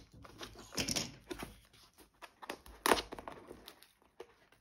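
Fingers picking and scratching at the flap of a cardboard mailer box, making irregular short scrapes and taps, the loudest about a second in and about three seconds in.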